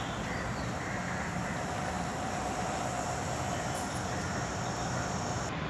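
Steady rumble of vehicle noise, with a faint held tone through the middle.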